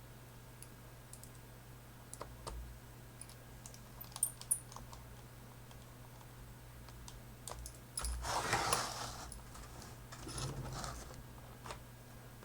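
Scattered small clicks and taps of a Phillips screwdriver and screws on a laptop's plastic case as the bezel screws are put back in. A short scraping rustle just after eight seconds in, and a fainter one a couple of seconds later.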